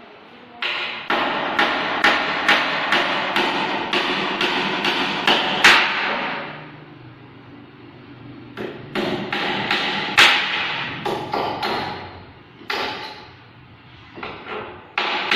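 Hammer striking wood at the bottom step of a wooden staircase, in runs of quick blows about two a second with short pauses between the runs. Each blow rings briefly.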